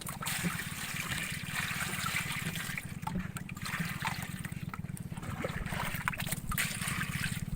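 Water splashing and trickling aboard a small fishing boat, over a steady low drone from the boat's engine.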